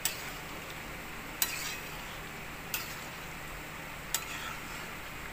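A spatula stirring thick curry gravy in a metal kadhai, knocking sharply against the pan four times, about every second and a half, over a steady sizzle from the pan.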